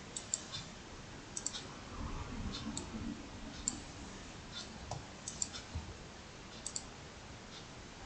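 Computer mouse clicking: a few faint, sharp clicks scattered over several seconds, many in quick pairs.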